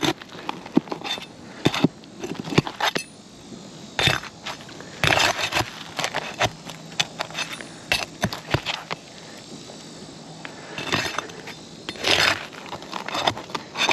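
Nails being pried out from under a stiff asphalt roof shingle: a metal tool clinking and scraping against nails and shingles, with dry crackling of the shingle, in irregular clicks and short scraping spells. The shingles are brittle and not pliable enough to be lifted for repair.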